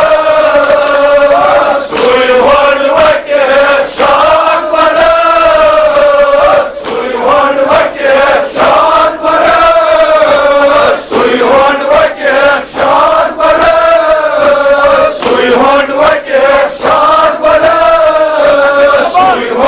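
A group of men chanting loudly in unison, a drawn-out lamenting melody sung in long phrases with short breaks, over repeated sharp slaps of chest-beating (matam).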